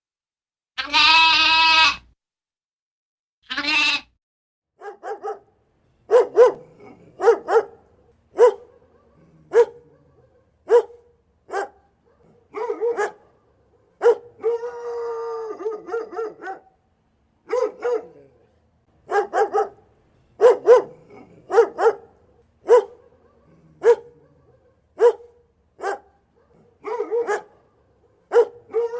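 Animal calls: one long wavering call near the start, then a run of short sharp calls about one a second, with a longer drawn-out call in the middle.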